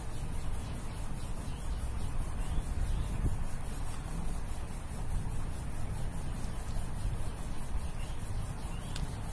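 Ballpoint pen writing on paper, faint scratching strokes over a steady low background rumble.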